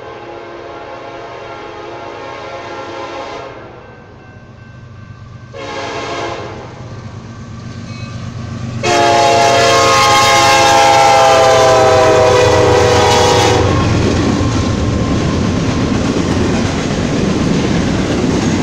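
Union Pacific freight locomotive's air horn blowing for a grade crossing: a long blast, a short blast, then a much louder long blast whose pitch drops as the locomotive goes by, over the low hum of its diesel engine. After the horn stops, the freight cars roll past with a steady rumble and clickety-clack.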